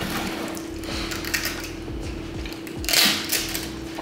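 Rustling and small clicks of fast-food packaging being handled: cardboard nugget boxes and a plastic dipping-sauce cup being peeled open. There is a louder rustle about three seconds in.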